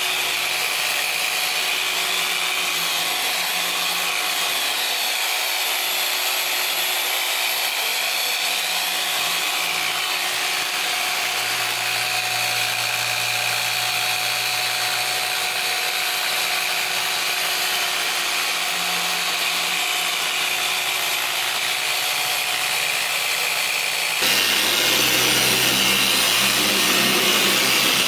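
Handheld machine polisher running steadily on car paint with a whine, buffing it with a foam pad during a paint enhancement. About 24 seconds in, the sound switches abruptly to a louder, deeper-running polisher.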